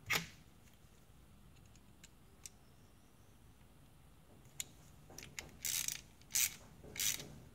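Metal trunk-support parts clicking and knocking as they are handled and adjusted by hand: one click at the start, a few faint ticks, then a quick run of clicks and knocks over the last few seconds.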